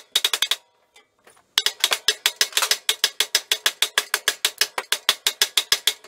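A wooden mallet beating fast on the locked-up crankshaft of a Kohler Command 18 hp engine, tapping it side to side to drive it up out of the crankcase. A short volley of blows, a pause of about a second, then a long unbroken run of quick strikes.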